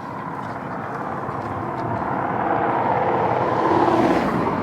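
Road and engine noise of a moving vehicle, growing louder to a peak about four seconds in and then dropping off quickly.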